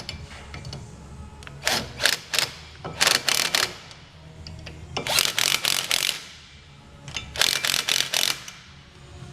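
Ratchet wrench clicking in four short bursts of rapid ratcheting, turning a bolt.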